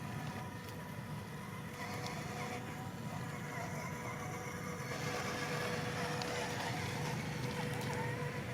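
Small electric motor running steadily with a steady whine, growing a little louder and fuller about five seconds in, with a few faint ticks.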